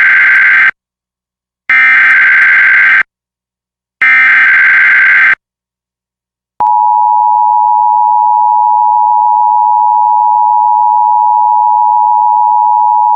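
Emergency Alert System SAME data header: three identical bursts of harsh digital data tones, each a little over a second long with short gaps between. After about a second of silence the EAS attention signal follows, a steady two-tone 853/960 Hz alarm tone that holds unchanged.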